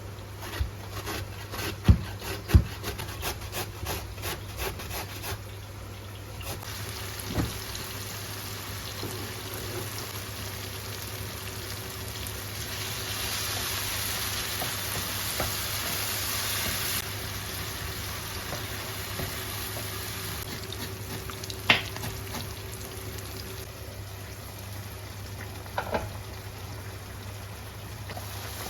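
Food sizzling in a hot pan while it is stirred, with sharp clicks and knocks of the utensil against the pan. The sizzle grows louder for a few seconds near the middle.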